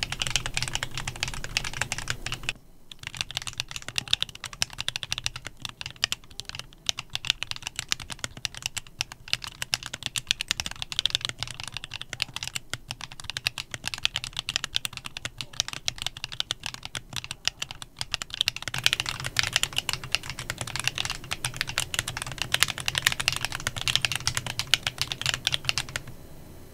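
Continuous, fast typing on a Klein Mont Cervin custom mechanical keyboard with factory-lubed Kinetic Labs Candy Vanilla switches, each keystroke a distinct click. The typing stops just before the end.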